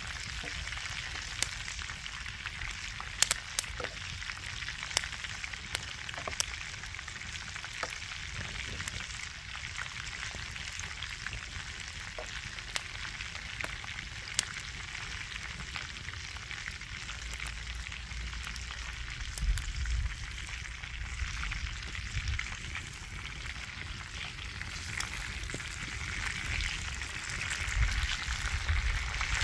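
Chicken leg quarters frying in hot fat in a grill pan, with sliced mushrooms frying in a second pan beside them: a steady sizzle with scattered sharp pops.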